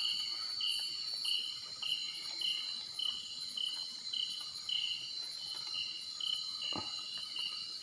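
Night insect chorus: a steady high-pitched buzz with a chirp that repeats just under twice a second. One soft knock near the end.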